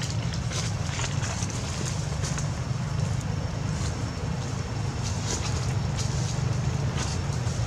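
Steady low outdoor rumble with scattered light clicks and rustles of dry grass and leaf litter as infant macaques handle a dry grass stalk.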